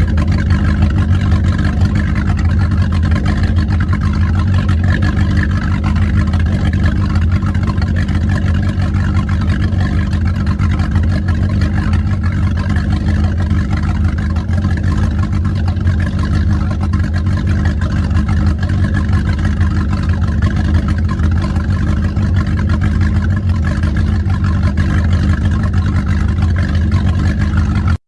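Old car's engine running at a steady speed: a low, even engine note with no revving.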